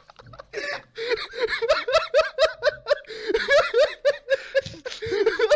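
A group of people laughing hard together, several voices overlapping in quick repeated ha-ha pulses, picking up about a second in.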